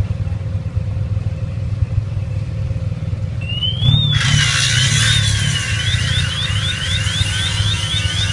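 Angle grinder cutting metal at a motorcycle's front wheel, a loud hissing grind that starts about four seconds in. Just before it, an electronic alarm starts whooping up and down, then turns into quick rising sweeps about three a second. A steady low engine rumble runs underneath throughout.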